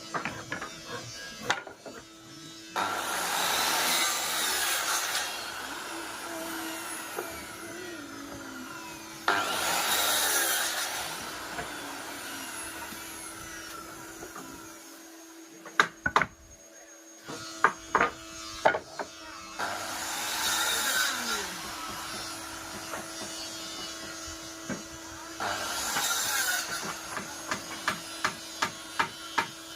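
Power saw cutting wood in four separate passes of about two seconds each, with a steady machine hum in between. Scattered sharp knocks come in the middle, and a quick run of light taps near the end.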